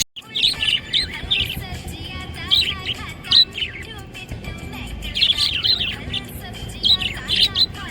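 Budgerigar chirping and warbling in quick clusters of high chirps, with short pauses between the bouts.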